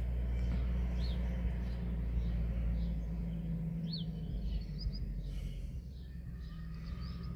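Outdoor ambience: small birds give short chirps and brief trills now and then over a steady low rumble.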